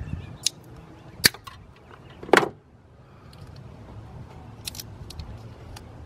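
Cutting pliers snipping plastic corrugated wire loom, heard as a few sharp snaps, the loudest about one and two seconds in, followed by lighter clicks of the loom and connector being handled near the end.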